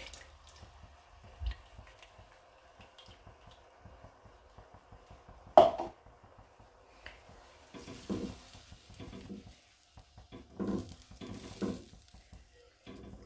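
Silicone spatula stirring coconut milk into a thin curry in a non-stick wok: a single sharp knock about halfway through, then a run of soft swishing and scraping strokes through the liquid.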